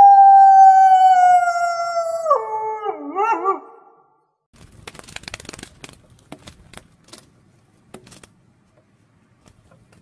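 Grey wolf howling: one long call held nearly level with a slight downward drift, dropping in pitch and wavering before it fades out about four seconds in. Faint scattered clicks and rustling follow.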